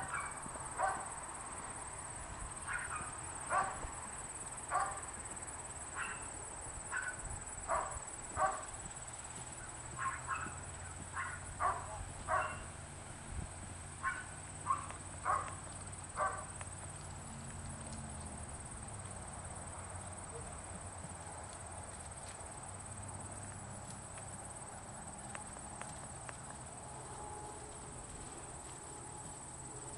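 Hoofbeats of a ridden horse trotting on grass: a run of short, irregular knocks, about one or two a second, that stops about halfway through. A steady high cricket drone runs underneath throughout.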